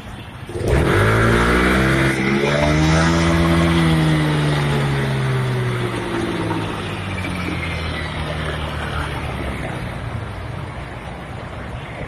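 Yamaha Aerox scooter's single-cylinder engine revved hard toward redline. The pitch climbs for about three seconds, holds briefly, then falls slowly back over the next several seconds.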